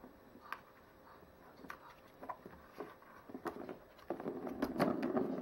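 Plastic ball rolling and rattling round the ring track of a cat scratcher toy as a cat bats it, starting about four seconds in, after a few light clicks of paws on the plastic.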